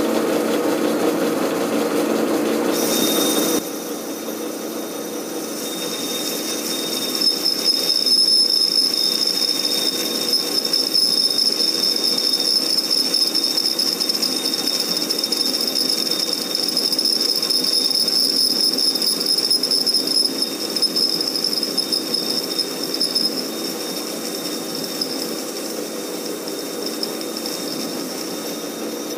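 Metal lathe running with its tool taking a light blending cut on a welded clutch hub. It is louder for the first few seconds, then drops to a quieter run about three and a half seconds in, and a thin high steady tone sets in from about six seconds and fades near the end.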